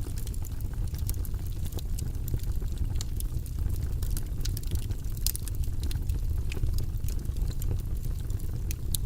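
Log fire burning in a fireplace: a steady low rumble of flame with frequent, irregular sharp crackles and pops from the burning wood.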